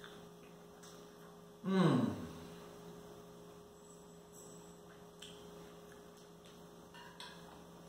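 Steady electrical mains hum. About two seconds in, a short louder sound sweeps down steeply in pitch, and a few faint clicks of cutlery on the plate follow.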